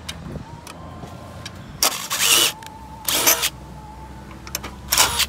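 Three short, harsh bursts of noise, each under a second, from work on sheet-metal chimney flashing being handled and fastened, with a low steady background hum between them.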